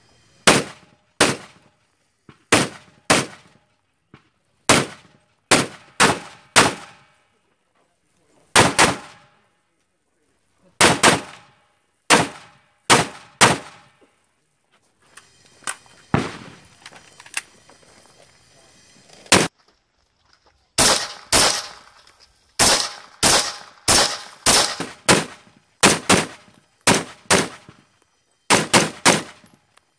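Rifle fire from an AR-15, mostly quick pairs of shots, each with a short echo. After a pause about halfway through, faster strings of shots come close together.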